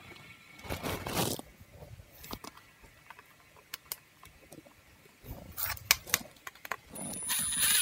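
Scraping and light clicks as a dishwasher toe kick panel is fitted into place. Near the end a cordless DeWalt impact driver runs for about a second and a half with a thin high whine, driving in a screw.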